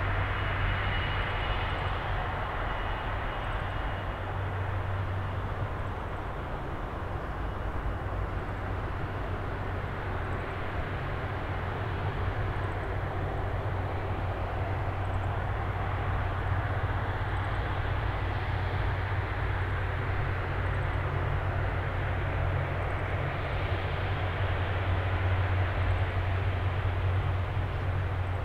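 Airbus A330 twin jet engines running at low thrust as the airliner rolls out and taxis after landing, a steady rushing drone over a low hum, with a thin whine in the first few seconds and a slight swell near the end.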